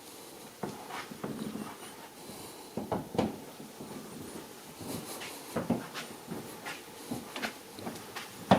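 Footsteps and handling noise of someone walking indoors with a handheld camera: irregular soft thuds and clicks, a few louder knocks about three seconds in and near the end.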